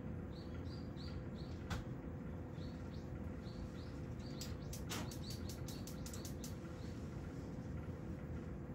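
Faint high chirping, two or three short chirps a second, over a steady low hum with a thin steady tone. A single click comes early, and a quick run of clicks follows midway.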